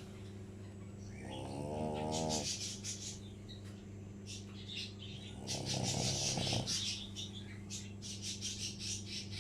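French bulldog snoring in its sleep: two long snores about four seconds apart, each with a hissing, wheezy breath noise, over a steady low hum.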